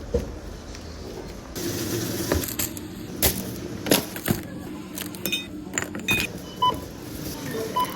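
Clinks and knocks of small objects being handled, with a few short electronic beeps in the second half.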